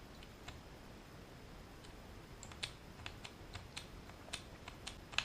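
Light, irregular plastic clicks of speedcube pieces being handled, a dozen or so, most of them in the second half.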